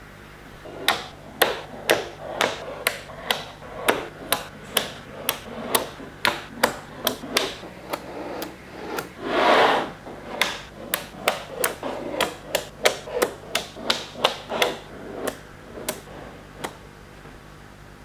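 Magnetic balls clicking as they snap together, a sharp click about every half second, with a longer rattling burst about halfway through; the clicking stops shortly before the end.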